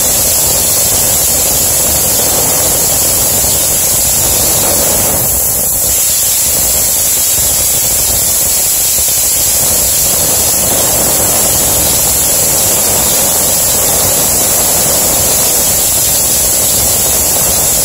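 Pneumatic drywall texture hopper gun spraying mud onto a wall: a loud, steady hiss of compressed air, with a brief let-up about five seconds in.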